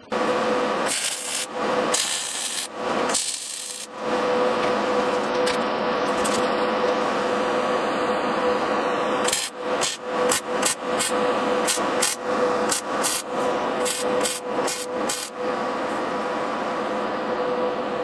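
Angle grinder grinding steel with a steady whine. About halfway through, the grinding breaks off and resumes in a quick series of short strokes, then runs steadily again.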